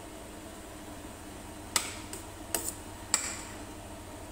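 Metal spatula clinking against a stainless steel pot as ground meat is stirred: a handful of sharp clinks with a brief metallic ring, clustered in the second half.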